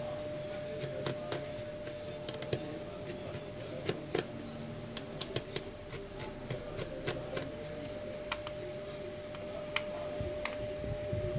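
Small screws being backed out of a Samsung Galaxy Core Prime's plastic rear housing with a precision screwdriver: scattered light, irregular clicks and ticks of the bit and screws, over a steady faint hum.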